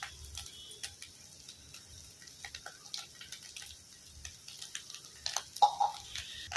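Scattered light clicks and taps of a steel spoon against a steel kadai as fish roe fry is stirred and spiced, over a faint frying sizzle.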